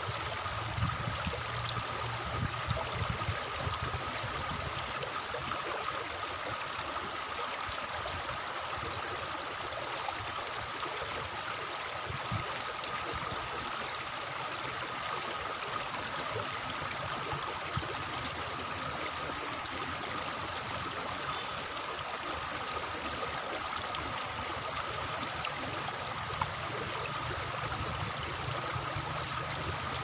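Water flowing steadily along a concrete irrigation channel, a continuous even trickling rush.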